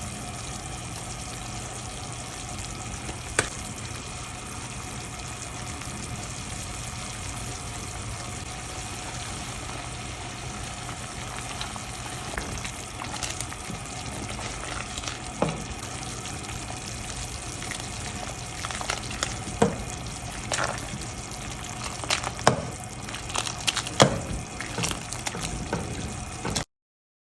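Food sizzling steadily in a hot pan. A metal utensil clicks and knocks against the pan, more often in the last several seconds. The sound cuts off suddenly near the end.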